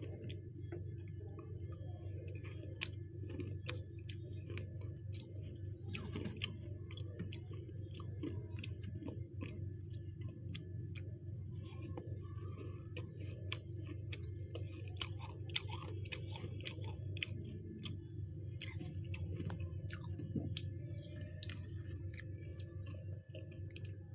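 Fluffy freezer frost crunching: many sharp, crisp crunches in irregular succession over a steady low hum.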